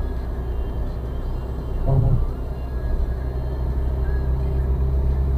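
Car driving at about 60–70 km/h, heard from inside the cabin: a steady low rumble of tyres on asphalt and engine. A brief thump comes about two seconds in.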